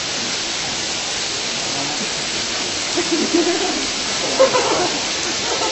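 A steady, even hiss, like rushing air or heavy recording noise, with faint voices about three seconds in and again a little later.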